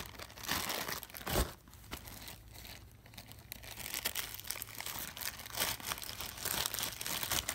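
Plastic packaging crinkling and rustling in irregular handfuls as ski goggles in their wrappers are handled and packed away, with one dull thump about a second and a half in.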